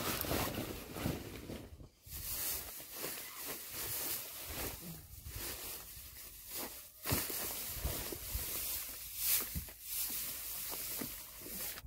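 Dry hay rustling as handfuls are pulled off a bale by hand, uneven with a few brief pauses.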